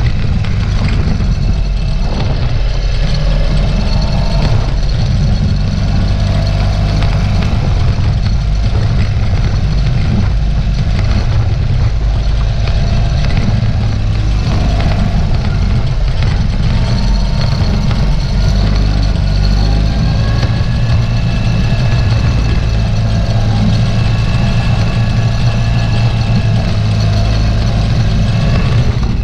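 Ural sidecar motorcycle's boxer-twin engine running steadily as the rig rides through snow.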